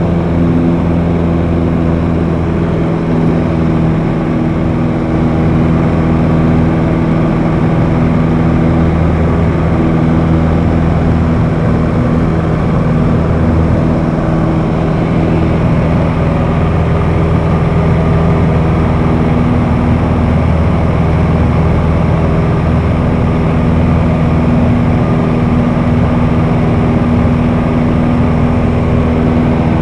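High-wing light aircraft's piston engine and propeller droning steadily in flight, heard inside the cabin, holding a constant pitch.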